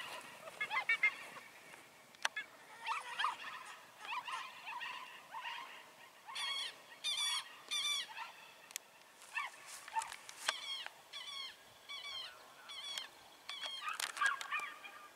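Faint series of short, high-pitched animal calls repeated about once or twice a second, strongest in the second half.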